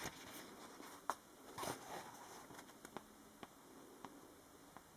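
Pages of a softcover manga doujinshi being turned and handled: faint paper rustling with a few soft ticks spread through.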